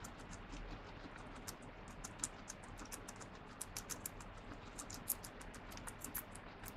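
Guinea pig chewing crisp lettuce leaves: a quick, irregular run of small crunching clicks, a few of them sharper than the rest.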